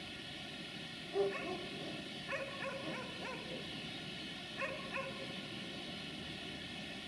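A dog barking and yipping in short calls over steady background noise: one yelp about a second in, a quick run of barks between two and three seconds, and two more around five seconds.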